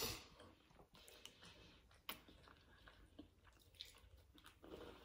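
Faint chewing and mouth sounds of people eating soft cookies, with a few small scattered clicks.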